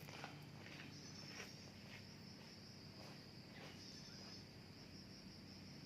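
Faint, steady, high-pitched chirring of insects, with a few soft taps or rustles in the first few seconds.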